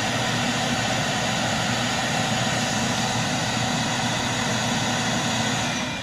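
Electric motor appliance running on power from a portable power station: a steady, even motor noise with a whine. It is switched off near the end and begins to spin down.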